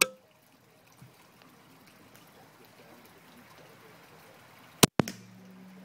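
Crossbow fired with the phone mounted on it: a sharp, very loud snap about five seconds in, followed at once by a second crack, then a low steady hum. A single sharp click sounds at the very start.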